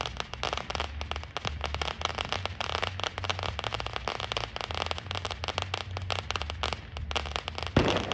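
Fireworks going off: a dense, rapid crackle of small pops with no break, and one louder bang near the end.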